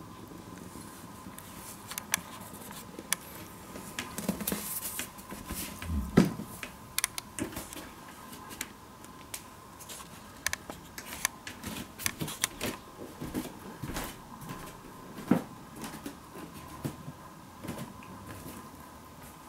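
Scattered light clicks and taps, with one louder knock about six seconds in, over a faint steady high hum.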